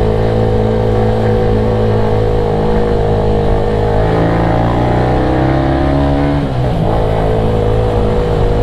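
Motorcycle engine and exhaust under way, running steadily. The revs climb about four seconds in, fall off sharply around six and a half seconds, then settle back to a steady note.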